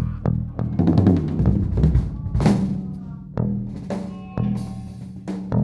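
Drum kit played loosely: kick and snare hits with a cymbal crash about two and a half seconds in, over a low, steady held tone.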